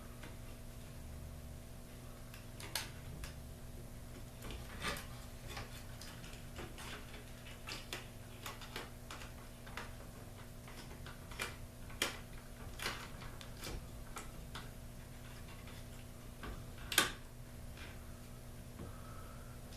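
Scattered small clicks and taps of a screwdriver working out a screw that holds a garage door opener's logic board in its plastic cover, with one sharper click about seventeen seconds in, over a faint steady hum.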